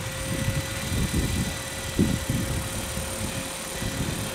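Electric MD500 scale RC model helicopter running on the ground with its rotors turning: a steady electric motor whine over an uneven, gusty low rumble.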